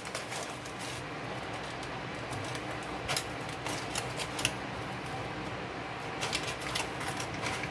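Knife cutting a green bell pepper held over aluminium foil: a few short, crisp cuts around the middle and a quick cluster near the end, over a faint steady hum.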